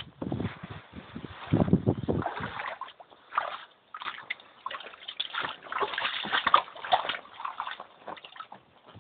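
Shallow floodwater sloshing and splashing in irregular bursts, deeper and heavier in the first couple of seconds, then lighter and brighter.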